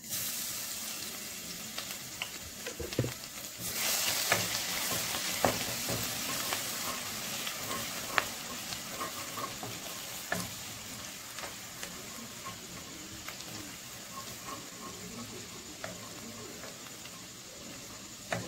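Chopped garlic sizzling in hot oil in a nonstick kadai. The sizzle starts suddenly as the garlic goes in and grows louder a few seconds in, then eases slowly. Scattered taps and scrapes come from a wooden spatula stirring it.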